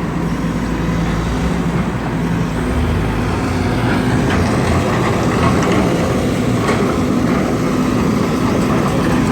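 Heavy diesel work vehicle's engine running steadily close by, working in mud; its low note changes about three seconds in.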